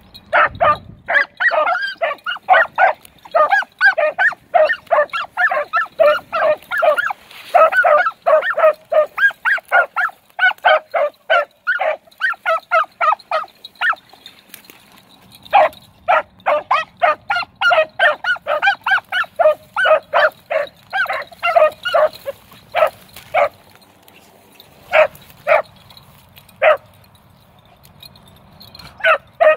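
Beagle hounds in full cry on a scent trail: fast runs of short chop barks, pausing briefly about halfway and thinning to scattered barks near the end before picking up again.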